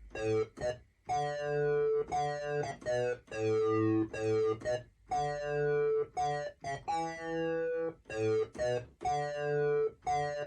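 Synthesizer playing a rhythmic keyboard part of chord stabs, short chords alternating with longer held ones, each with a sharp attack and brief gaps between.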